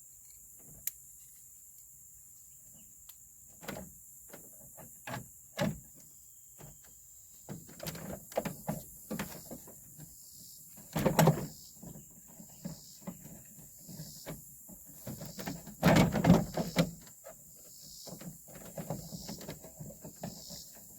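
Plastic interior door trim on a truck door being handled and pushed into place by hand: scattered clicks and knocks, with two louder rattling bursts about 11 and 16 seconds in.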